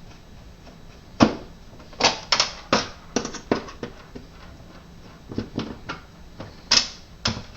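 Irregular clicks and knocks of a Phillips screwdriver working screws out of a refrigerator's freezer panel, with a sharp knock about a second in and a quick cluster of clicks around two to three seconds.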